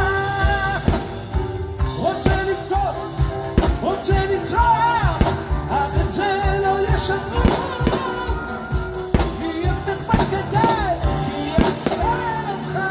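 Live music: singers with a symphony orchestra performing a slow Israeli song. Frequent sharp bangs from the fireworks bursting overhead are heard through it.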